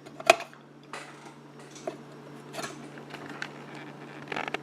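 Metal coil shield can on a vintage radio chassis being handled and knocking against the power transformer, which keeps it from sitting flat: one sharp metallic clack near the start, then a few lighter taps and rattles.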